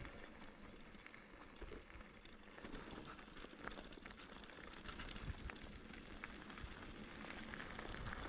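Mountain bike tyres rolling over loose gravel: a steady crackle of small stones with scattered ticks and rattles.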